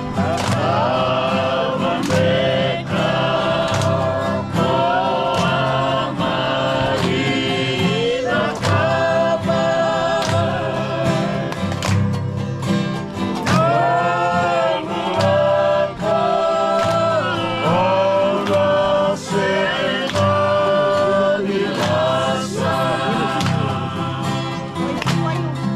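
A group of voices singing a song together in choir-like harmony over a steady beat of accompaniment.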